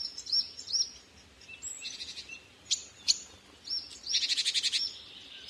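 A small songbird singing: a string of short, high chirps and quick upward sweeps, with a fast trill about four seconds in.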